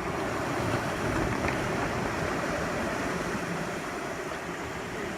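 Steady rush of wind and sea water around a sailing yacht under way on the open ocean.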